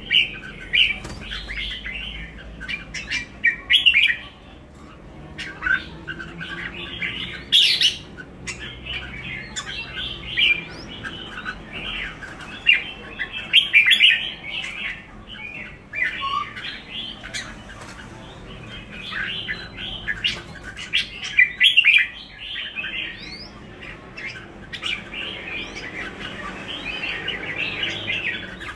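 Caged pied red-whiskered bulbuls chirping and calling: a near-continuous run of short, quick, overlapping notes with sharp clicky accents.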